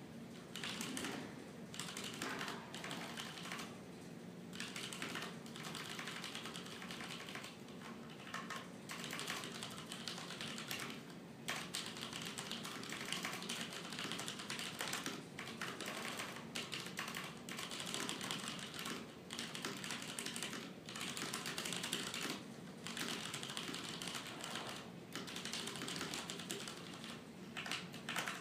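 Continuous fast typing on a CM Storm QuickFire XT mechanical keyboard with Cherry MX Brown switches: a dense run of key clicks and clacks, broken by brief pauses now and then.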